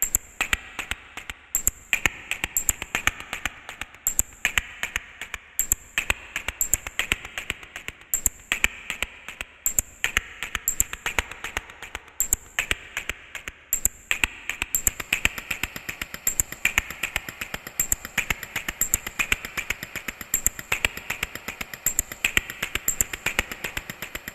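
Minimal techno track opening on dry, clicking, snap-like percussion in a steady rhythm, with bright high ticks over it. About two-thirds of the way in, a continuous hissing hi-hat layer comes in.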